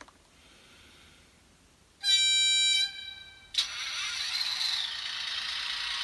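Model diesel locomotive's sound decoder sounding its horn once, a loud pitched blast lasting under a second. About a second and a half later a steady hissing run sound with a constant high whine starts abruptly and carries on.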